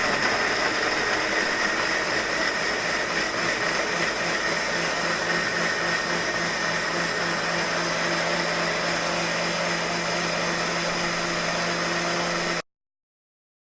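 Kitchen mixer grinder running steadily with a motor whine, grinding tomatoes, ginger and green chillies into a puree. It cuts off abruptly near the end.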